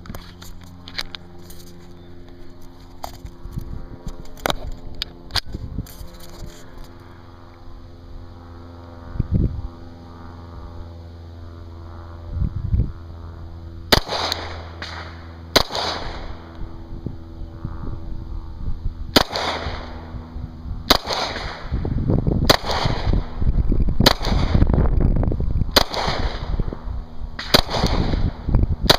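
A second-generation Glock pistol firing a string of about eight single shots, roughly one every second and a half, starting about halfway through after some faint clicks. The pistol cycles each round without a stoppage.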